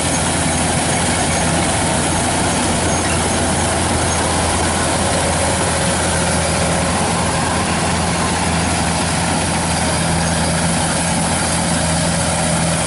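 Kubota DC-105X rice combine harvester running steadily as it cuts rice, a continuous loud engine and machinery drone.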